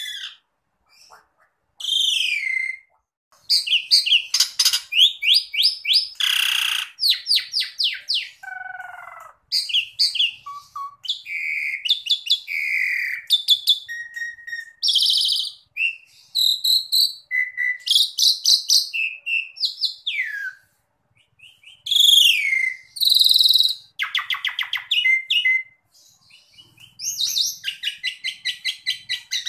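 Asian pied starling (jalak suren) singing: a loud, varied run of phrases with short gaps, mixing whistled glides, several of them falling, with fast trains of rapidly repeated notes and a lower falling note about nine seconds in.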